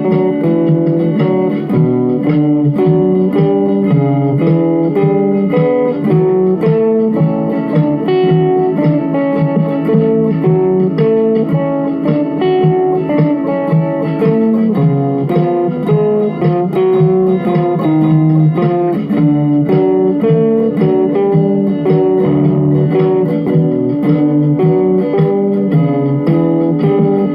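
Instrumental rock music: electric guitar playing moving melodic lines over a rough full band backing of bass and drums at 110 beats per minute, with a steady drum beat throughout.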